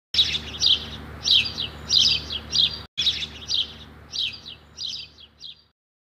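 Small birds chirping in quick runs of high, falling notes, one run about every half second, over a low steady hum. There is a brief break about three seconds in, and the chirping fades out just before the end.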